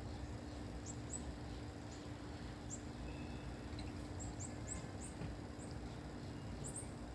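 Faint outdoor background: a low steady rumble and hum under many short, high chirps that come more often from about four seconds in.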